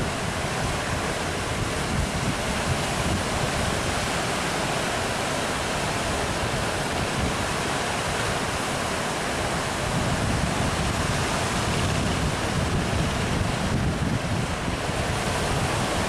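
Ocean surf breaking in a steady wash, with wind buffeting the microphone in gusts, stronger in the second half.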